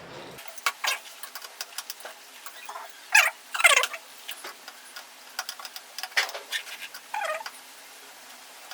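Irregular small clicks and taps with a few short scraping, squeaky rubbing sounds, from PC hardware and small tools being handled on a desk.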